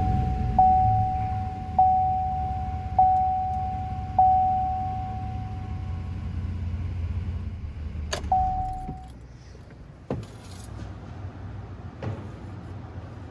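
Pickup truck's cabin warning chime dinging at one steady pitch about every 1.2 seconds, over the low rumble of the engine running, which dies away about seven seconds in. Just after eight seconds there is a sharp click with one more chime, followed by two knocks a couple of seconds apart.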